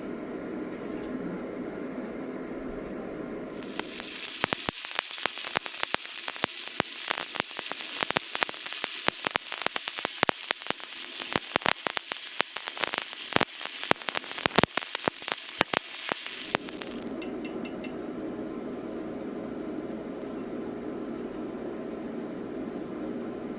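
Stick welding arc crackling and sizzling for about thirteen seconds, with dense irregular pops, starting a few seconds in and cutting off after about two-thirds of the way through. A steady hum before and after the arc.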